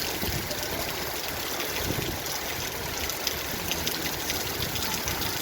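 Heavy rain falling in strong wind, a steady rushing of water.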